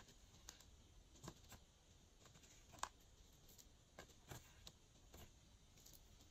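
Faint, scattered small clicks and taps of a plastic spatula scraping pressed eyeshadow out of a makeup palette's pans, about ten in all, the sharpest one just under three seconds in.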